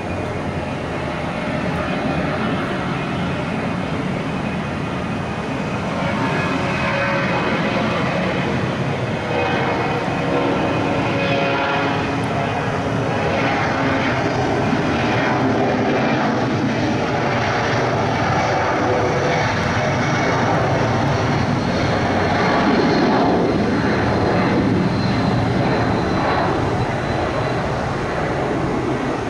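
Boeing 757-200's Pratt & Whitney jet engines at takeoff power, a steady, heavy engine noise that grows louder about six seconds in and turns crackling, peaking about three-quarters of the way through.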